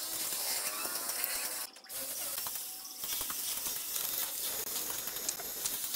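Bricklaying sounds: a steel trowel scraping and spreading mortar on bricks, with small taps and clicks as bricks are set, and a brief break just before two seconds in.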